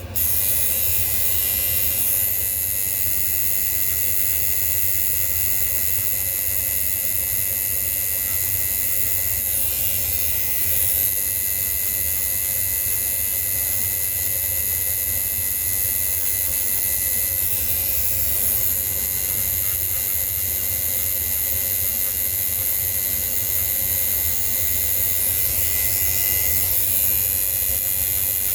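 A small motor running steadily, with a high hiss, a few steady whining tones and a low hum.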